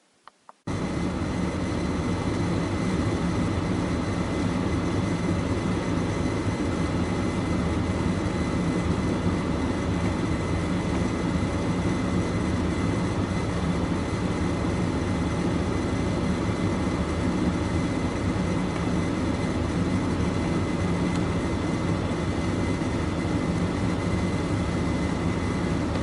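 A few sharp clicks, then, under a second in, a loud, steady engine-like drone with a faint high whine starts abruptly and holds unchanged.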